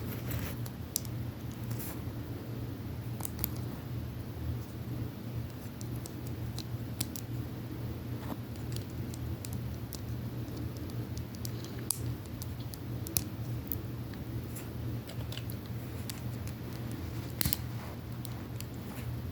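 Plastic Lego bricks being handled and pressed together: scattered light clicks and taps at irregular intervals over a steady low hum.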